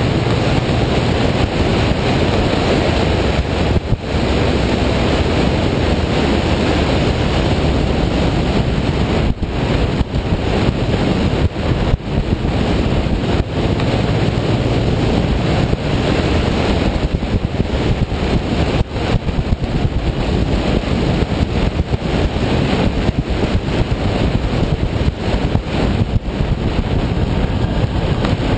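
Wind rushing and buffeting over the microphone of a camera on a moving motorcycle, with the motorcycle's engine running steadily underneath.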